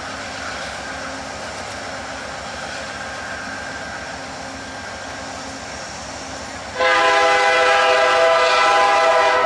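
Amtrak GE P42DC diesel locomotive running steadily as it approaches. About seven seconds in its air horn begins a long, loud blast that is still sounding at the end.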